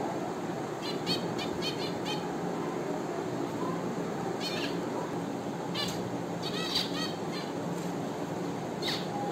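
Caged pet finches calling in quick clusters of short, high chirps, about a second in, again around four and a half seconds, and twice more later, over a steady low background noise.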